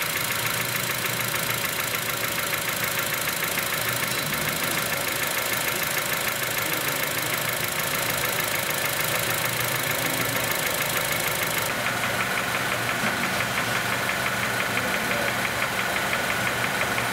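2006 Honda Element's 2.4-litre four-cylinder engine running steadily with a fast, even knocking from inside the engine. It is an internal noise that the technicians find loudest in the block, and that three other shops could not diagnose.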